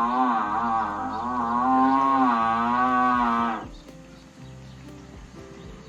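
A cow mooing: one long call of about three and a half seconds, wavering slightly in pitch, then stopping. A quiet music bed plays underneath and continues after the call.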